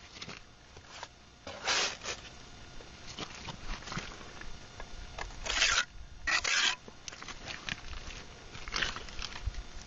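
Steel mason's trowel spreading and scraping mortar along the top edge of a concrete block, in four or so short scraping strokes, the loudest two a little past the middle.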